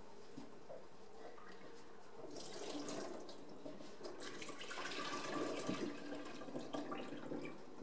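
Kitchen tap running into a stainless-steel sink from about two seconds in, with splashing and light clatter as diced potatoes in a bowl are rinsed under it; the water stops near the end.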